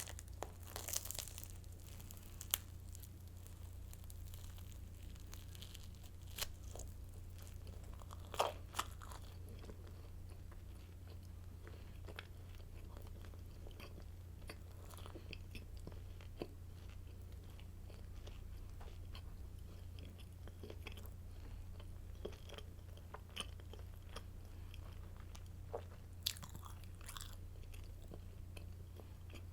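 Close-miked chewing of hard, crusty garlic baguette sticks: scattered sharp crunches, the loudest about eight seconds in and again near the end, over a steady low hum.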